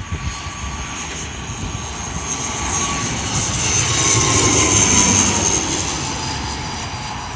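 Wings Air ATR 72 twin-turboprop airliner on landing approach passing low overhead: a propeller and engine drone with a high whine that grows louder, peaks about four to five seconds in, then eases off as its pitch drops.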